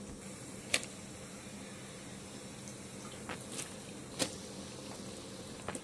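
A few sharp, short knocks as pieces of meat and cow skin are put into a cooking pot, over a faint steady hum.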